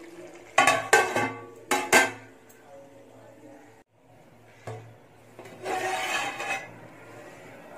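Metal plate-lid and slotted ladle clanking onto an aluminium cooking pot as it is covered to rest: four sharp ringing metal clinks in the first two seconds. After a short break, a single knock and then a cloth rubbing across the metal lid for about a second.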